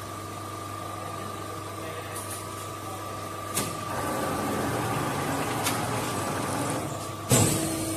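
Silicone embossing press running with a steady low hum and a thin high tone. A click about halfway through, then louder machine noise, and a loud sudden burst near the end.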